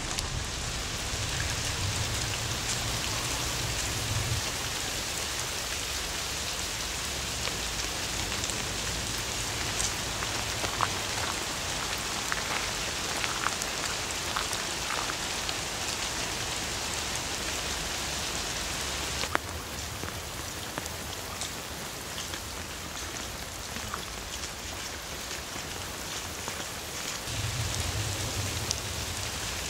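Steady rain falling on foliage and water, a dense hiss with scattered drop ticks, a little quieter after about 19 seconds.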